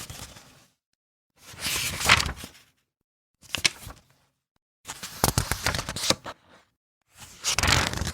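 Paper book pages being turned one at a time: four separate page flips, each a brief papery swish and flutter, with dead silence between them, after the tail end of an earlier flip. The last flip runs on past the end.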